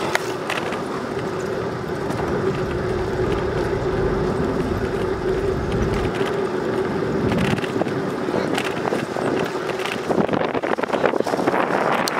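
Bicycle rolling along a paved path: steady tyre-on-pavement noise with a steady hum that fades about ten seconds in. Wind buffets the microphone for a few seconds in the middle.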